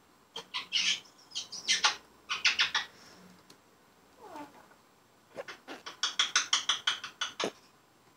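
African grey parrot chattering in quick runs of short, high chirps and clicks, with a single falling whistle about four seconds in.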